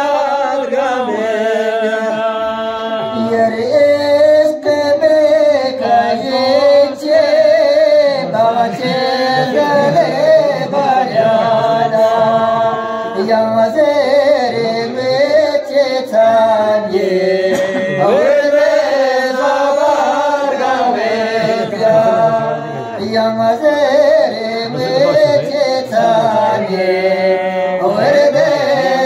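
Men's voices chanting verses in a slow, melismatic, unaccompanied melody, sung into microphones. One voice leads at a time.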